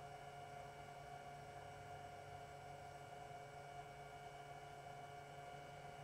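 Propane heater's radiant burner running with a faint, steady hum.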